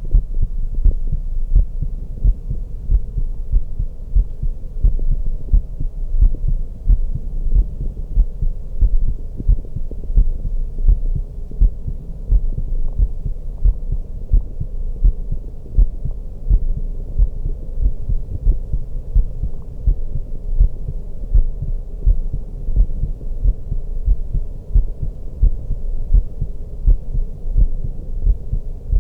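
A woman's heartbeat heard through a stethoscope: a steady, regular run of low, muffled thumps. Under it runs a faint dark ambient drone.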